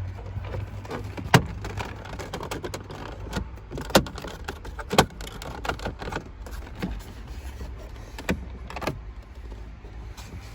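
Irregular clicks and knocks of plastic trim and hand tools as a car's centre console and shifter surround are taken apart, the sharpest about one and a half, four and five seconds in, over a steady low hum.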